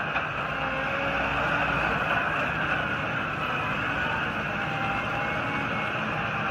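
Prinoth Panther rubber-tracked dumper's diesel engine running steadily as the machine drives over gravel.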